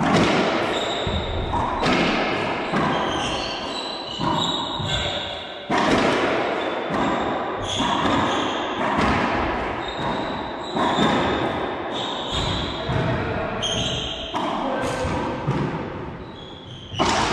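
Racquetball doubles rally: the ball cracks off racquets and the court walls again and again, every hit echoing around the enclosed court, with short high squeaks of sneakers on the hardwood floor between hits.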